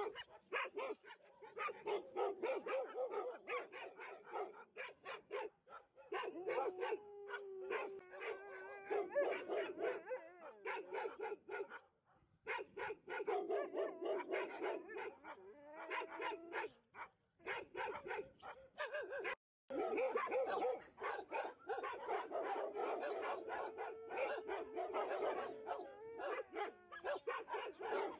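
An Alaskan Malamute singing: long drawn-out howling calls that bend in pitch, several times, over a crowd of dogs barking and yipping.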